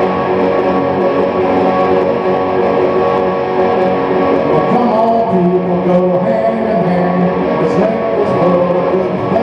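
Guitar played live, chords and notes ringing on in a continuous stretch of music.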